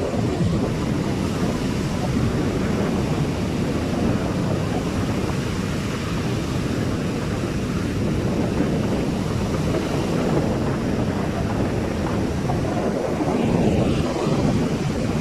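Steady low rumble of ocean surf with wind buffeting the microphone.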